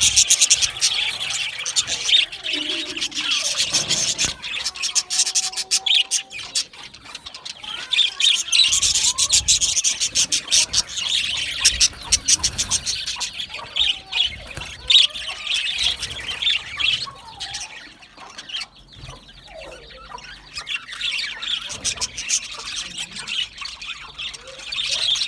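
A flock of budgerigars chirping and chattering together, a dense, continuous warble of quick overlapping high chirps, easing off briefly about two-thirds of the way through.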